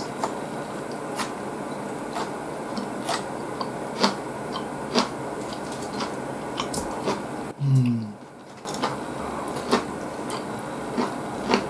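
Close-up chewing of tsukemen noodles, with sharp wet mouth clicks about once a second. A brief falling hum from the eater comes about two-thirds through.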